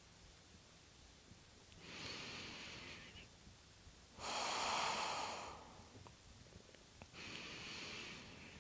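A woman's slow, deep breathing: three long breath sounds a couple of seconds apart, the middle one the loudest.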